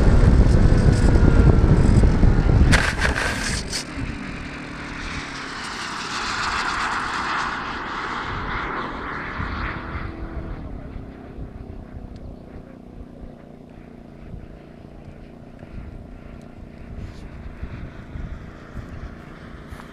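Wind rushing over a model airplane's onboard camera as it lands, with a few sharp knocks about three seconds in as it touches down and comes to rest. Then a model aircraft's propeller drone swells and fades away, leaving a faint steady background.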